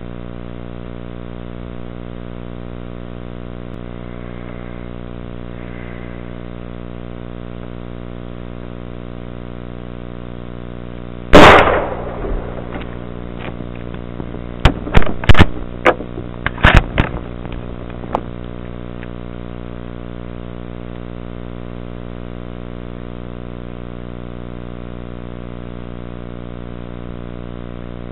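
Rifle shot at night, very loud with a trailing echo, about eleven seconds in. Over the next several seconds comes a scatter of sharp clicks and knocks, several of them nearly as loud as the shot. A steady low hum runs underneath throughout.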